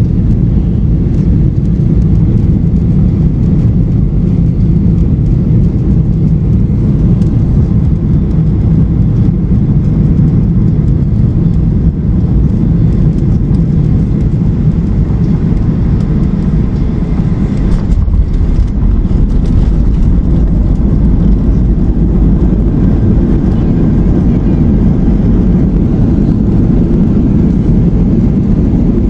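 Boeing 737-800 cabin noise: a steady, loud low rumble of its CFM56 jet engines and airflow, with a brief knock about 18 seconds in.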